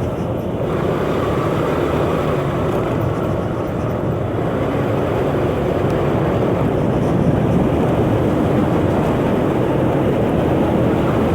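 A 125cc motor scooter's engine running steadily while riding along, with a dense rush of road noise.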